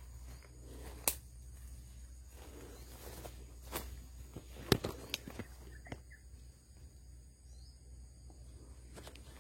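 Scattered footsteps and knocks, a handful of sharp clicks with the loudest just under five seconds in, over a faint steady low hum and a few faint bird chirps.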